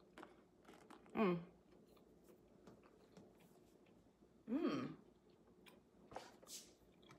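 A person chewing an air-fried breaded mozzarella stick, with faint small clicks. Two short vocal sounds come through closed lips, about a second in and about four and a half seconds in.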